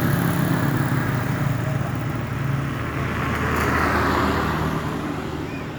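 Motor vehicle engine running with a steady low hum, and a swell of louder road noise about three to four seconds in.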